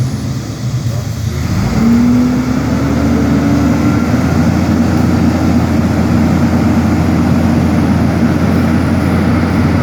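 An engine revs up about a second and a half in, then runs steadily at the raised speed.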